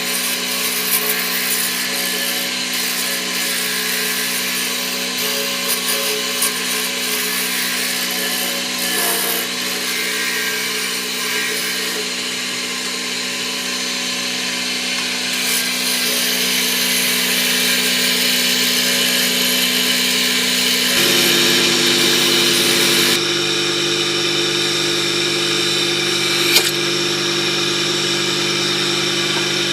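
Motor-driven wood lathe running with a steady hum while a turning tool scrapes and cuts a spinning wooden knife handle. The hum changes pitch about two-thirds of the way in.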